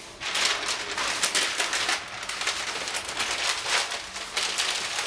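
Tracing paper and crinkled blue transfer paper rustling and crackling as they are lifted and handled, in irregular bursts.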